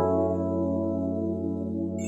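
Background music: one long held chord on soft, ambient-style keyboards.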